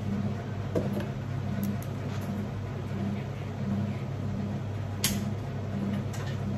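Steady low mechanical hum that pulses evenly about one and a half times a second, with a sharp click about five seconds in.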